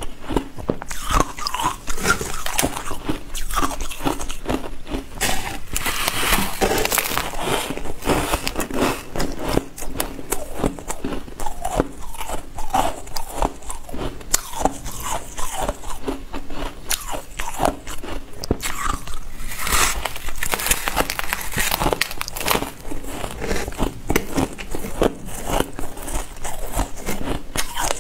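Ice being bitten and chewed close to the microphone: a dense, unbroken run of sharp crunches and crackles.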